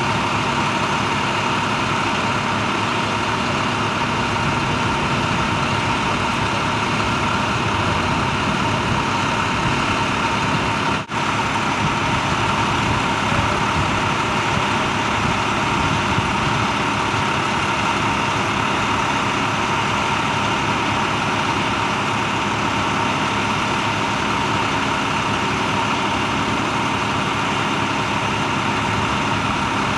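A heavy vehicle engine idling steadily, with a steady tone running on top. The sound drops out for an instant about eleven seconds in.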